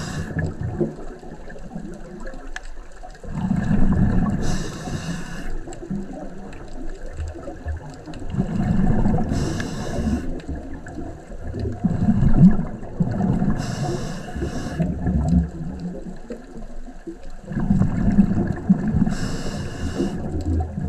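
Scuba diver breathing underwater through a regulator, a breath about every five seconds: each one a short hiss and a gush of bubbling from the exhaled air, four breaths in all.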